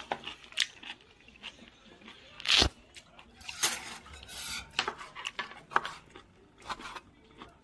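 Kitchen knife cutting boiled octopus on a cutting board: irregular taps and clicks as the blade meets the board, with one louder knock about two and a half seconds in and a short scraping rattle just after.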